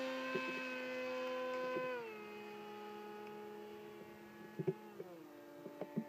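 RC foam-board airplane's motor and propeller whining steadily in flight, dropping in pitch twice, about two seconds in and again about five seconds in, and growing fainter. A few faint clicks near the end.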